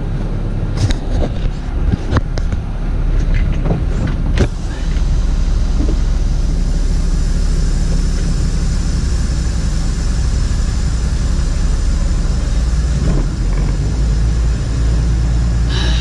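Grain truck engine running, heard from inside the cab: a steady low rumble that gets louder about four seconds in, with a few knocks and rattles in the first few seconds.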